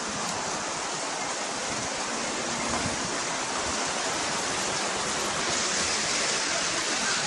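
Heavy rain falling, a steady hiss with no breaks.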